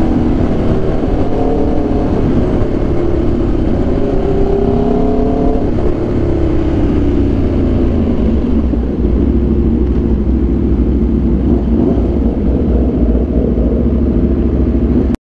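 Aprilia RSV4 1100 Factory V4 engine through an SC Project exhaust while riding, its pitch rising and falling with throttle and gear changes over a steady wind rumble. The sound cuts out briefly near the end.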